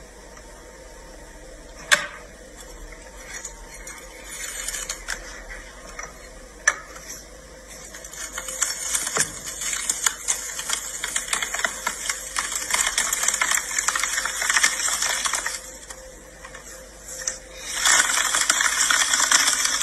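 Stainless-steel lever-press juicer crushing pomegranate seeds: two sharp metal clacks in the first seven seconds, then a long dense crackling as the seeds are pressed. The crackling dips briefly and comes back loudest near the end.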